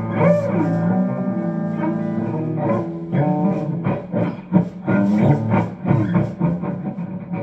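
Guitar being played solo: picked single notes and chords that ring on, changing every second or so.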